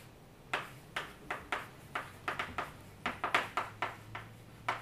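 Chalk writing on a blackboard: an irregular run of sharp taps and short strokes, starting about half a second in.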